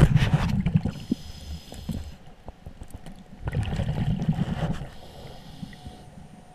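Scuba diver breathing through a regulator underwater: a bubbling rumble of exhaled air at the start and again about three and a half seconds later, with a fainter hiss of inhalation in between.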